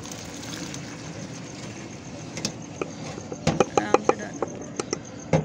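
Boiled rice being tipped from a pot into a metal colander: a steady rush of draining water, then, from about two and a half seconds in, a run of clinks and knocks of the metal pot and colander.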